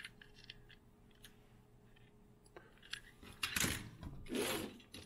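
Die-cast toy cars being handled: a few light clicks and taps, then about three seconds in, two short stretches of rustling and clattering as the next toy is picked out of a pile of cars and packages.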